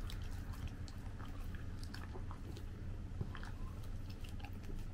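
Golden retriever chewing broccoli, with irregular small clicks and crunches of the teeth and jaws.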